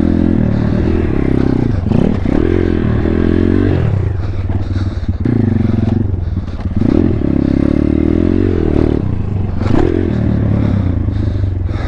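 Single-cylinder four-stroke engine of a 140cc Thumpstar pit bike being ridden, revving up and easing off again and again, its pitch rising and falling about five times.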